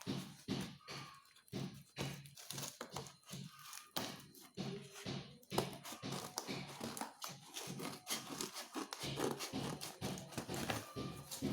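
A sealed parcel being opened by hand: plastic packaging and wrapping crinkling and rustling, with many short taps and knocks as it is handled.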